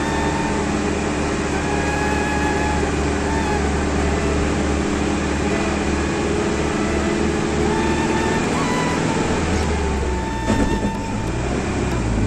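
Bus engine and road noise heard from inside a moving bus, a steady low hum with rushing noise, with a few brief knocks about ten and a half seconds in.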